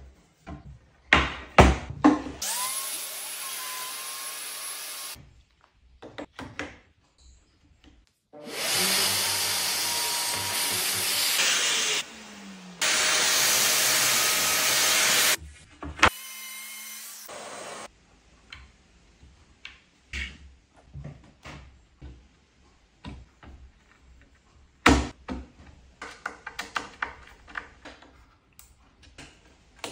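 Cordless drill running in three runs of a few seconds each, boring into the edge of a melamine-faced chipboard panel through a clamped drilling jig; the later two runs are louder. Afterwards, light clicks and knocks of panels being handled and screws being driven by hand with a screwdriver.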